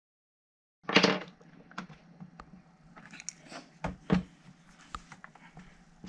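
A laptop being handled on a table: a louder bump about a second in, then scattered light knocks, taps and clicks.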